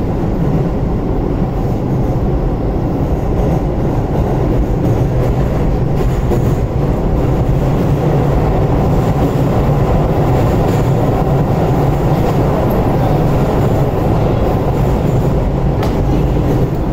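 Refurbished Keio 8000 series electric train running, heard from inside the passenger car: a steady, unbroken rumble of wheels on rail and running gear.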